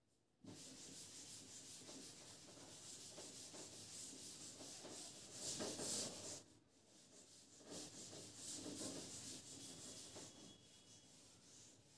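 Faint, steady rubbing in two stretches of several seconds each, with a short pause a little past the middle.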